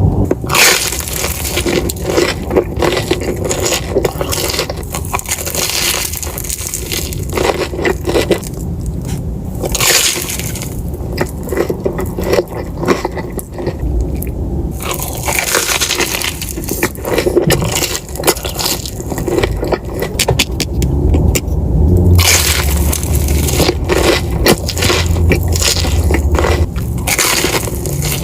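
Close-miked eating: crunching bites into a crispy Korean corn dog and chewing, with crackling throughout.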